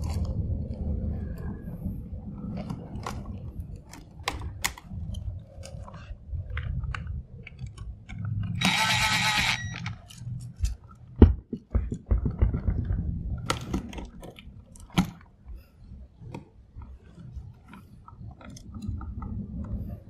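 Hands working copper wires onto a duplex outlet's screw terminals: rustling, crinkling and scattered small clicks. About nine seconds in there is a one-second whir of a cordless drill driving a terminal screw, and a couple of seconds later a sharp click.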